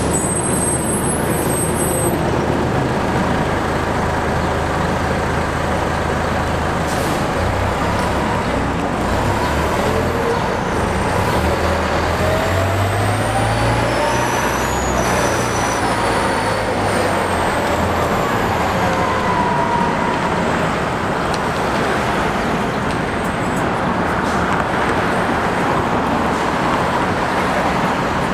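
New Flyer D60 articulated diesel transit bus running, then pulling away and accelerating, its engine note rising and falling through the middle, over steady street traffic noise.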